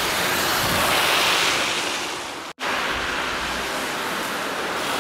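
Steady rushing noise of wind buffeting the microphone and tyres hissing on the wet road from passing traffic. It swells about a second in and breaks off for an instant just past the halfway mark.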